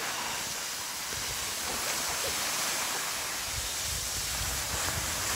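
Steady hiss of skis sliding over packed snow, with wind rumbling on the microphone, growing stronger near the end.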